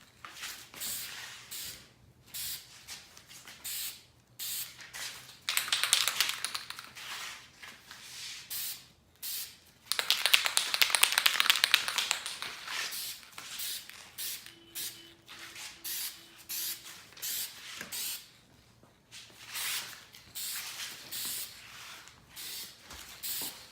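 Aerosol spray paint can spraying in a series of short hissing bursts, with two longer sprays partway through, as a coat of paint goes onto the mirror housing.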